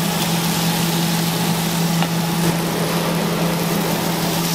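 Steady low machine hum of commercial kitchen equipment with a constant hiss over it, as buns and bacon sizzle on a flat-top griddle.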